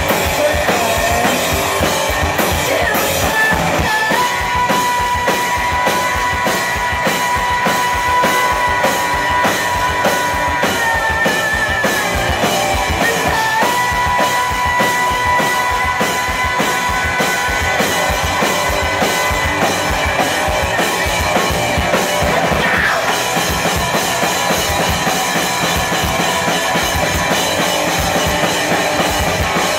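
Live rock band playing electric guitar, electric bass and drum kit, with the drums keeping a fast, steady beat. Long held high guitar notes ring from about four seconds in and again from about fourteen seconds, each bending down as it ends.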